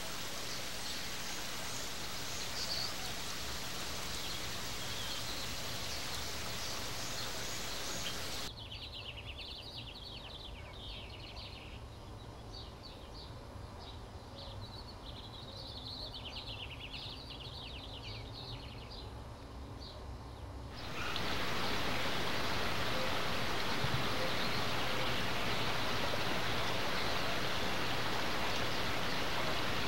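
Outdoor canyon ambience in three cuts: a steady hiss with a few faint bird calls, then from about eight seconds in a quieter stretch with birds chirping, then from about twenty-one seconds in a louder, even rush of creek water running.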